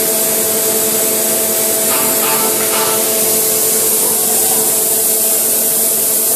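Tunnel boring machine equipment running during segment ring assembly: a loud, steady hiss with a constant machine hum beneath it.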